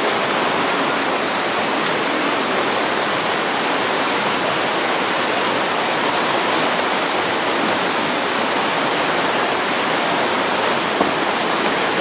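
Fast whitewater river rushing steadily below a footbridge: a constant, even noise of running water with no let-up.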